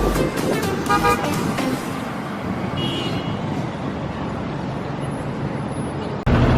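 City street traffic noise, with a car horn sounding briefly about a second in.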